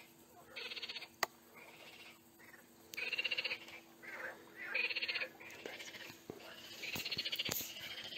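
A chorus of frogs calling: short, rapidly pulsed trills, each under a second long, repeating every second or two, with a sharp click about a second in.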